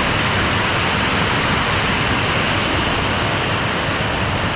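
Steady rushing of a small creek waterfall spilling over and beside a low concrete dam.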